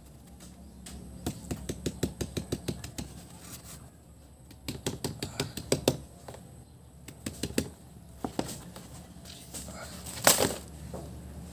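The paper casing of a Dugong firecracker being tapped and shaken to empty out its powder: runs of quick light taps, about five a second, with paper crinkling between them and a louder paper rustle near the end.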